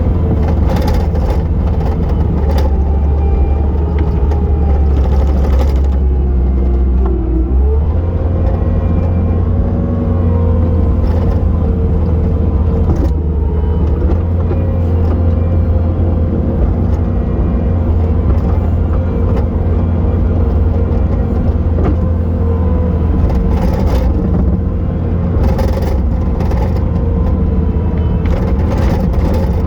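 Bobcat T870 tracked loader's diesel engine working hard with a steady low drone and a whine from its hydraulics. The pitch shifts about eight seconds in as the engine and hydraulics take up load, with scattered knocks as the machine digs into and pushes heavy wet snow.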